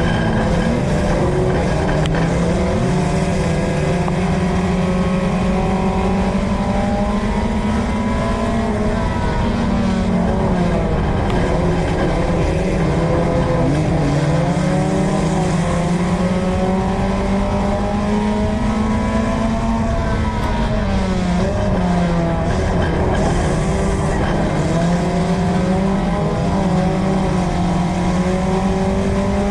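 USRA Tuner dirt-track race car engine, heard from inside the car at racing speed. The engine pitch dips and climbs again several times as the throttle comes off for the corners and back on down the straights.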